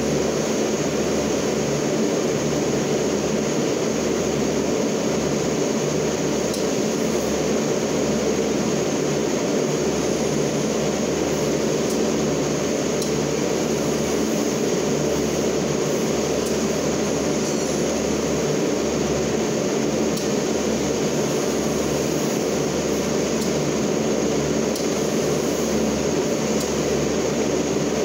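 Toyota forklift running: a steady, even mechanical drone that holds without change.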